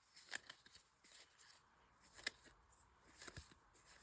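Faint, scattered clicks and light rustle of trading cards being slid and flipped by hand, a few separate soft snaps over a few seconds.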